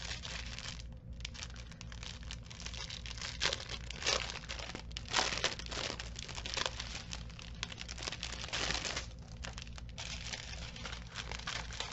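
Plastic packaging crinkling as hands handle small plastic bags of diamond-painting rhinestones and drills: irregular rustles and crackles, a few louder ones about four, five and nine seconds in.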